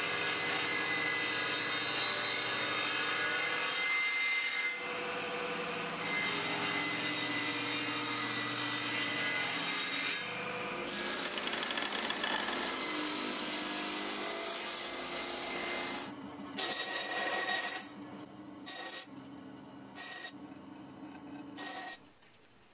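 Table saw running and cutting wood, in three long passes with brief dips between them, as spline slots are cut into the frame corners and thin spline stock is ripped. From about 16 s on, a bandsaw makes several short cuts, chopping small spline pieces from the strip.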